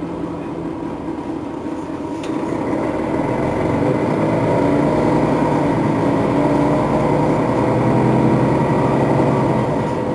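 Setra S415NF city bus's diesel engine running under load, growing louder about two and a half seconds in as the bus pulls away, then easing off near the end. A single sharp click sounds just after two seconds in.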